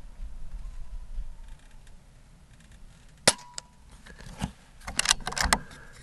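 An Air Venturi Avenger .22 PCP air rifle, its regulator set to 2200 psi, fires one shot: a single sharp crack about three seconds in. A second or two later come several mechanical clicks and clacks as the action is worked for the next pellet.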